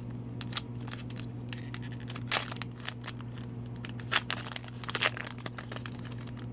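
Foil wrapper of a hockey card pack crinkling and tearing as it is ripped open, in scattered crackles, the loudest a little over two seconds in and again around four and five seconds in.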